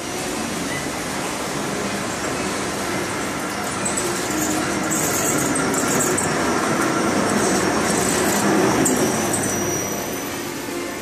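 Serkon MN1 Mini Master tubular fabric spreading machine running: a steady mechanical whir from its drive and feed rollers. It grows louder about four seconds in, with high-pitched squeaks for several seconds, then eases near the end.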